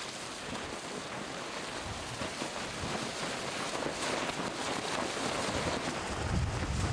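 Wind blowing over the microphone: a steady hiss, with a low buffeting rumble coming in near the end.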